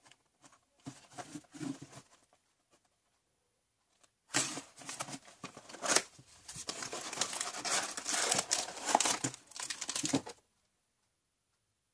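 Cardboard candy-kit box being handled and opened, then a clear plastic wrapper holding pink plastic parts crinkling as it is taken out. A few short rustles about a second in; dense crinkling and tearing from about four seconds in until about ten seconds, then it stops.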